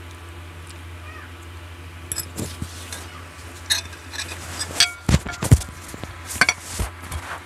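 A fork and spoon clinking and scraping against ceramic plates as noodles are served onto a small plate, with a few heavier knocks in the second half. A steady low hum runs underneath.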